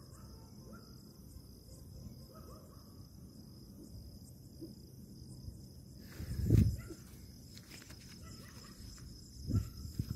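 Crickets chirping steadily, with a low rumble underneath. A loud dull thump comes about six and a half seconds in and a smaller one near the end.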